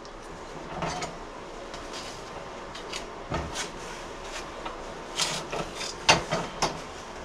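Scattered light knocks and clicks of kitchen items being handled, a few sharper ones in the second half.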